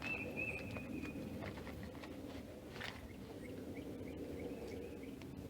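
A bird calling: a thin high whistle held for about a second, then a run of short chirps at the same pitch, with one sharp click near the middle.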